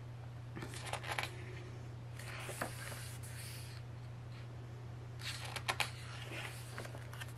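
Paper handling: photo book pages and card-stock photos being turned and shifted, in three short bouts of rustling and light crackling, over a steady low hum.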